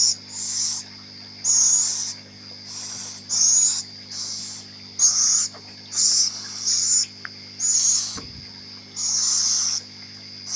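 Baby owl giving repeated harsh, hissing screeches, about one a second, each under a second long, over a steady low hum.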